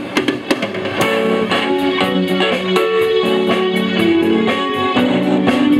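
Band music with electric guitar and keyboard over a steady ticking beat: the instrumental opening of a song, before the vocal comes in.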